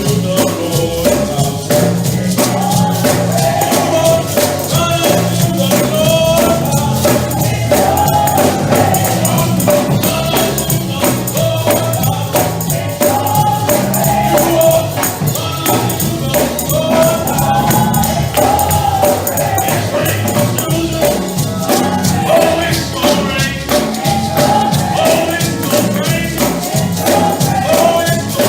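Gospel praise-and-worship music: a choir and congregation singing over a steady driving beat of tambourine and drums.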